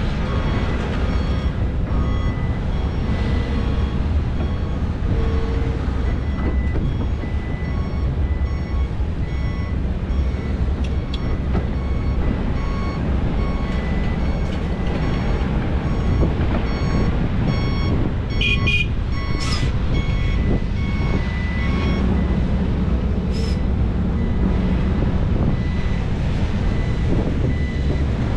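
Heavy diesel earthmoving machinery (excavators and dump trucks) running with a steady low rumble, while a reversing alarm beeps repeatedly. A few brief high-pitched squeaks come about two-thirds of the way through.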